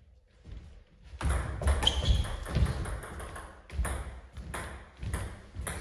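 Table tennis rally: a celluloid-type ball clicking off bats and table in quick succession, starting about a second in after the serve and dying away a couple of seconds later.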